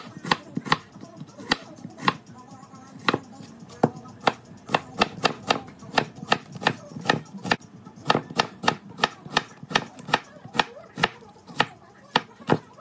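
Chef's knife slicing an onion on a plastic cutting board: the blade knocks on the board in a quick, even run of sharp taps, about three a second, with a few short pauses.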